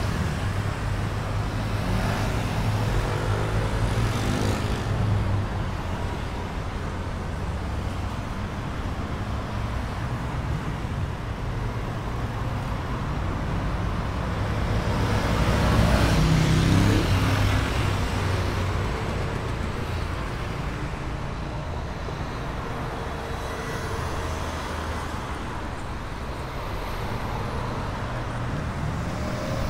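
City road traffic: cars and motor scooters passing along a busy avenue in a steady rumble, loudest as a group of vehicles goes by about halfway through.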